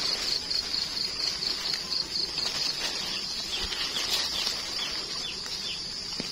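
Rustling and crackling of dry leaf litter as gloved hands dig termite mushrooms out of the forest floor. A high pulsing trill runs behind it, most marked in the first half, with several short falling bird chirps.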